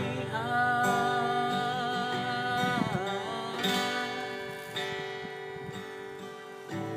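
A singer holding long, drawn-out notes on the word 'kepedihan' over acoustic guitar, in an unplugged Malay ballad; the sung line fades somewhat near the end.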